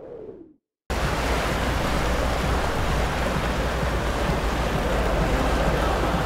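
A short swoosh falling in pitch fades out. About a second in, a steady rush of wind on the microphone and sea water starts abruptly and holds.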